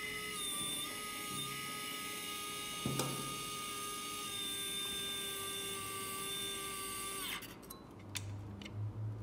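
Small electric hydraulic pump on a scale model truck spinning up into a steady high whine as the hydraulic lift rod is lowered. It runs about seven seconds, with a single click about three seconds in, then winds down.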